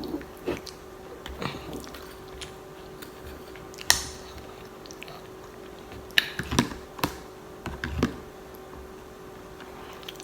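Close-up eating sounds: chewing and wet mouth noises with scattered sharp clicks, the loudest about four seconds in, over a faint steady hum.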